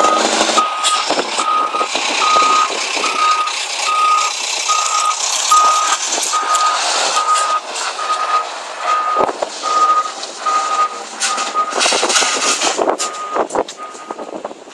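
A Scania truck's reversing alarm beeping steadily, one beep at a single pitch about every three-quarters of a second, as the truck backs up. The beeps sound over the truck's noise and scattered bursts of hiss, and they stop shortly before the end.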